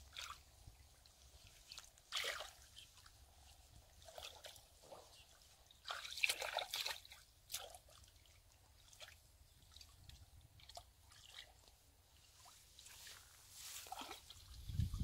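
Faint, irregular sloshing, dripping and squelching as hands grope through mud and shallow muddy water, with a cluster of small splashes about six to seven seconds in.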